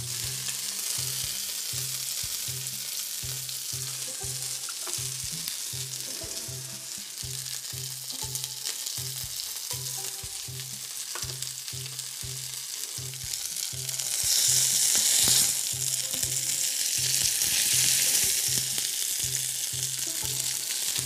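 Salmon and skrei fillets frying skin-side down in olive oil in a pan, a steady sizzle as the skin crisps. The sizzle swells louder for a moment about two-thirds of the way through.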